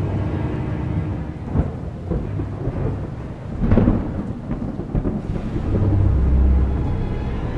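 Thunderstorm sound effect: thunder rumbling over rain, with a sharp crack about a second and a half in, a louder crackling peal nearly four seconds in, and a deep rumble swelling near the end.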